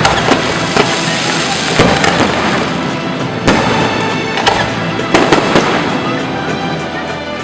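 Fireworks bursting overhead: a string of sharp bangs at irregular intervals, over loud music.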